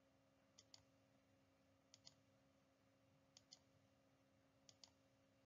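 Near silence: faint room tone with a steady low hum, and four faint double clicks evenly spaced about a second and a half apart.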